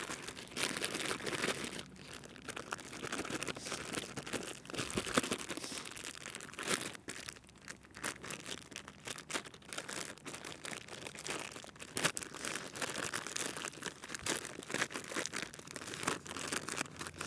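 A clear zip-lock plastic bag crinkling and rustling irregularly as hands squeeze and knead bannock dough inside it, working water into the flour mix.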